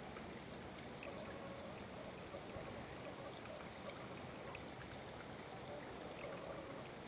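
Faint steady trickle of running water in a garden koi pond, with a few small plops at the surface as koi come up to feed.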